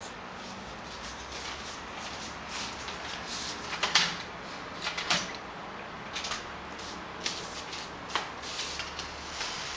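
A metal door handle and lock being worked and the front door swung open: a few sharp clicks and knocks, the loudest about four seconds in, over a faint steady hum.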